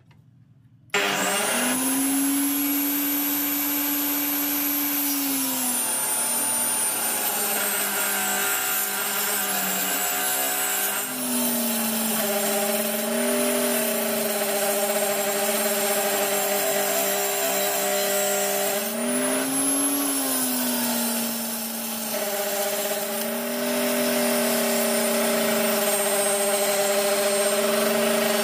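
An angle-grinder-powered homemade table saw switches on suddenly about a second in and runs with a steady whine. Its pitch sags several times as the blade cuts into a pine board and climbs back between cuts.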